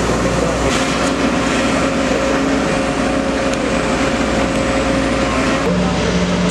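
Diesel engine of a Sumitomo SH210 long-reach excavator running steadily with a held hydraulic whine. The sound changes abruptly about a second in and again near the end.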